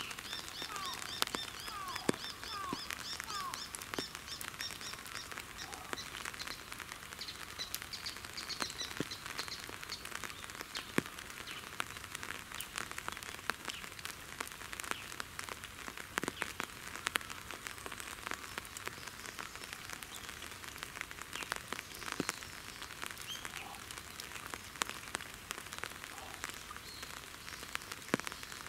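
Light rain pattering and dripping, with many sharp single drips throughout. A bird calls in quick runs of high repeated notes during roughly the first ten seconds.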